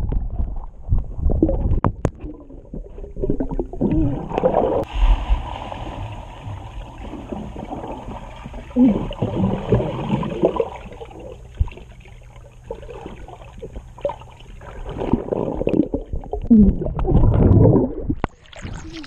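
Pool water heard through a waterproof camera held underwater: muffled, uneven sloshing and gurgling, with louder splashing near the end as it reaches the surface.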